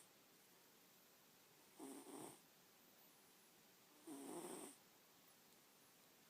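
A sleeping domestic cat snoring faintly: two snores about two seconds apart, each lasting about half a second.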